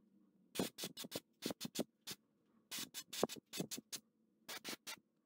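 A paintbrush stroking acrylic paint onto a carved wooden mouse lure: an irregular run of short, scratchy brush strokes in quick clusters, over a faint steady hum.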